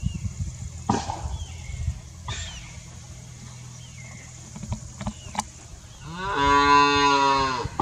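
A cow mooing once, one long call of about a second and a half near the end. Before it come a few scattered knocks and faint high bird chirps.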